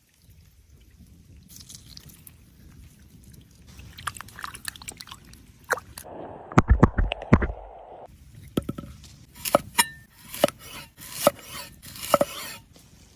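Food-handling sounds: scraping, knocking and a little liquid. A cluster of heavy knocks comes about halfway through, then a run of short, sharp scraping strokes.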